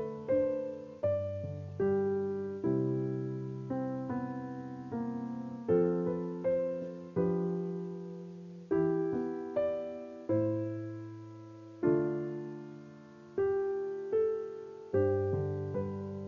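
Slow background piano music: chords struck one after another, each left to ring and fade before the next.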